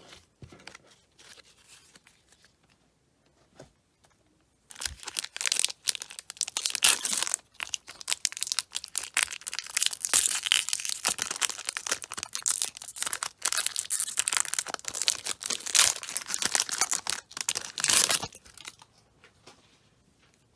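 A trading-card pack wrapper being torn open and crinkled by hand, a dense crackling that starts about five seconds in and stops a couple of seconds before the end.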